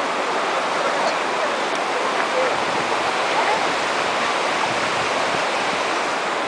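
Shallow ocean surf washing steadily over flat wet sand, a constant even rush of water.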